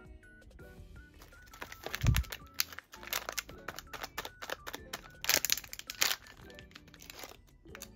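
Background music with a stepping melody, over the crinkling of triangular foil snack packets being handled and torn open, in clusters of sharp crackles. A dull thump about two seconds in is the loudest sound.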